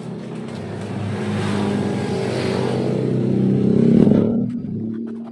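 A motor vehicle engine running close by, growing steadily louder to a peak about four seconds in, then dropping away quickly.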